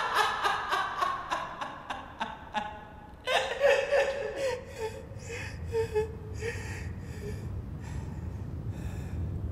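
A man laughing in rapid, evenly spaced pulses that fade over the first three seconds, then a fresh burst of laughter a little after three seconds that trails off in broken, breathy bursts. A low rumble grows under it in the last few seconds.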